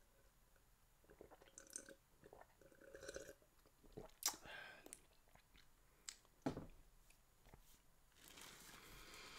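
Faint sips and swallows from a mug, with a few small clicks and knocks scattered through.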